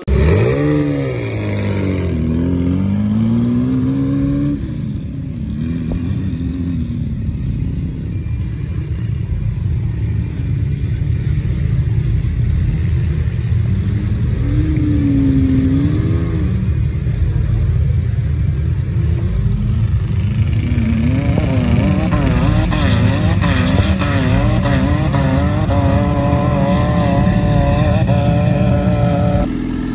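Off-road vehicle engines running and revving, their pitch rising and falling over and over as dune vehicles climb a sand hill.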